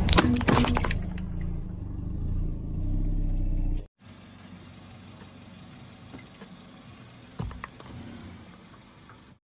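A car's engine running slowly while a tyre rolls over and crushes objects: a loud crunching and cracking in the first second over the steady low engine hum. After a cut about four seconds in, the engine is quieter, with one sharp crack partway through.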